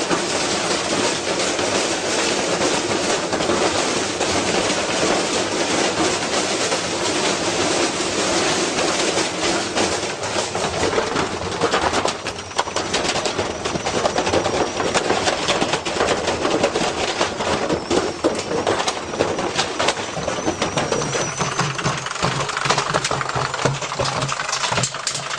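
Washing machine spinning a heavy, off-balance load: a loud, continuous rapid clatter of the drum and cabinet banging and rattling as the machine shakes itself apart. The banging turns choppier about halfway through.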